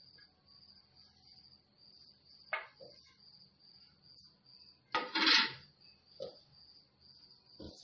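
Plate and spoon knocking and scraping against a plastic mixing bowl as ingredients go in: a few short clinks, and one louder half-second scrape about five seconds in. Behind it a cricket chirps steadily, a high pulsing chirp about two or three times a second.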